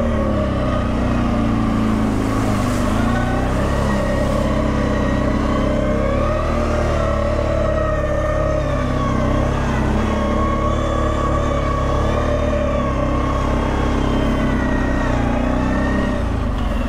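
Off-road vehicle's engine running steadily under load, its pitch rising and falling slowly with the revs.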